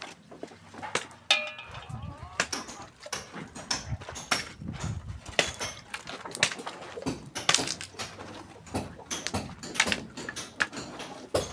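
Irregular sharp knocks and clicks of hand work, with a brief pitched call or ring about a second and a half in.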